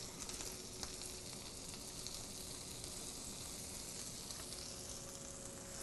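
Egg-soaked sandwich bread frying in butter on a stovetop griddle over a gas flame: a quiet, steady sizzle.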